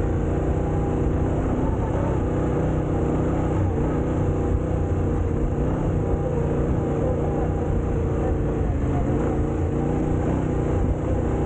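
A vehicle engine running at a steady, unchanging speed while driving along, with a dense low rumble underneath.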